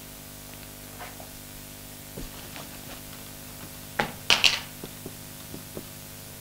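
Marker pen writing on a whiteboard: a few faint taps and strokes, then a louder scratchy run of strokes about four seconds in, over a steady room hum.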